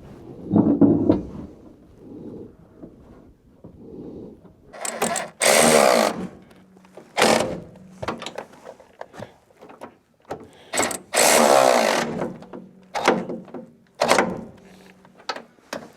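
A power tool, such as a drill-driver, run in several short bursts of up to about a second each while fasteners go in, with lighter knocks and clunks between the bursts.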